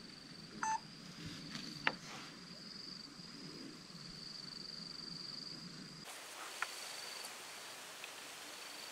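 Insects trilling steadily, high-pitched and faint, breaking into shorter stretches after about six seconds, with a few small clicks, the sharpest about two seconds in.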